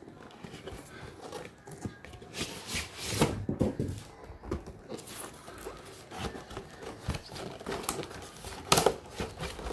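Cardboard packaging rustling and scraping as a box is opened by hand: the outer sleeve slid off and the lid lifted. Irregular scrapes and rustles, loudest about three seconds in, with a sharp scrape near the end.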